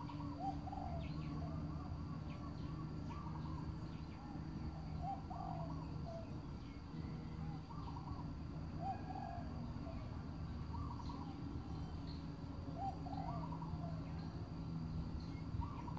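Wild birds calling: short groups of arched notes repeated every second or two, over a steady low hum and a faint steady high tone.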